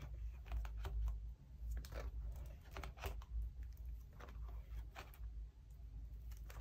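Plastic photocard binder sleeves crinkling and rustling as binder pages are turned, with scattered short clicks and taps over a steady low hum.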